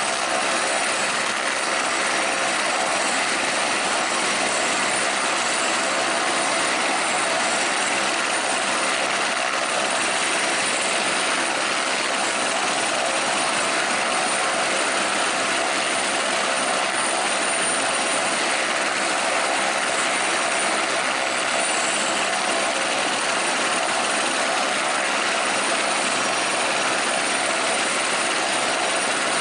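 Eurocopter AS350 B3 helicopter running steadily: a high, even turbine whine from its Turbomeca Arriel turboshaft engine over the rush of the rotor.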